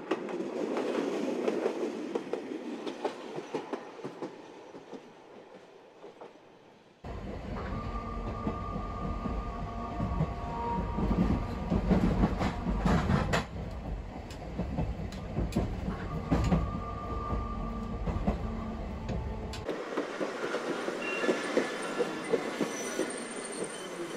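Tosaden streetcar running on its track, heard three times: a tram going by, then from about seven seconds in a louder ride heard from the driver's cab, with a deep rumble, a traction-motor whine and wheels clicking over rail joints, and near the end another tram rolling past more lightly. The old cars run on nose-suspended (tsurikake) traction motors.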